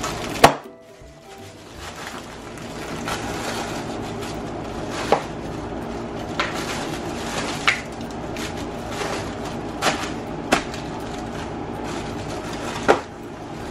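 Plastic air-cushion packing bags being stabbed with a pen and popped: one sharp, loud pop about half a second in, then several smaller pops spread out over the following seconds.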